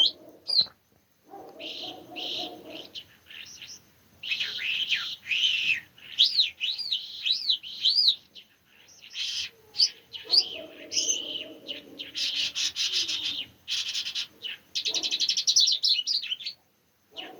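A songbird singing a varied song of quick arched whistles, fast trills and buzzy runs. A lower pulsing call joins in twice, near the start and about ten seconds in.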